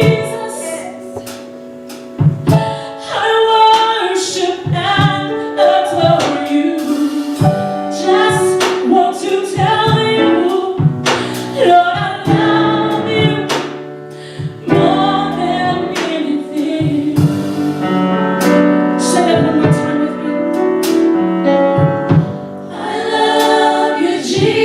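Gospel vocal group singing with instrumental accompaniment and a steady beat.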